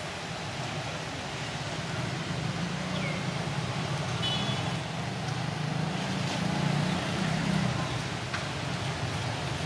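Steady low outdoor rumble that swells through the middle, with two brief high chirps about three and four seconds in.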